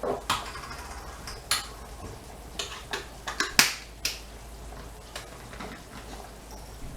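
Scattered sharp clicks and taps of kitchen utensils and containers being handled, the loudest few about a second and a half in and near the middle.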